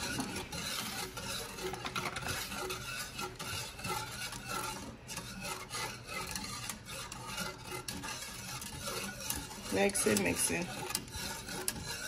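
Wire whisk stirring milk and cook-and-serve pudding mix in a metal pot, its wires scraping and lightly ticking against the pot's bottom and sides without a break. The mixture is whisked constantly as it heats on the burner so it does not scorch or clump.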